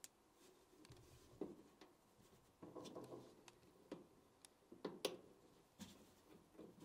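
Near silence with faint, scattered clicks and handling sounds as a new plastic dryer idler pulley (Whirlpool 279640) is slid onto its shaft and its keeper fitted by hand.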